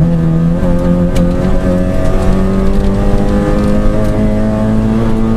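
Rally car's engine, heard from inside the cockpit, pulling hard in one gear, its pitch climbing slowly and steadily as the car gathers speed.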